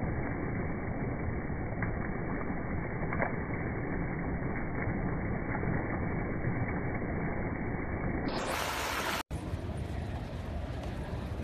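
Creek water rushing steadily over a small rocky cascade, with a couple of faint clicks. About nine seconds in it cuts off abruptly and a different, quieter steady outdoor hiss follows.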